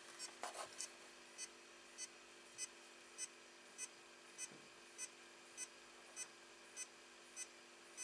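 External hard disk drive beeping faintly in short, evenly spaced pulses, about one every 0.6 seconds. The drive is underpowered: its power adapter supplies only 1 amp, not enough current to run it.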